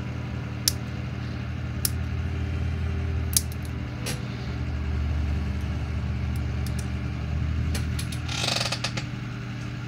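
Small plastic model-kit parts being handled on a workbench: a few sharp clicks in the first half and a short rustle near the end, over a steady low hum.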